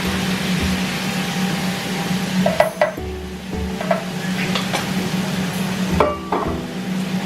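Food sizzling in a pan while being stirred, with a few sharp clinks of a utensil against the pan, the loudest about two and a half and six seconds in. A steady low hum runs underneath.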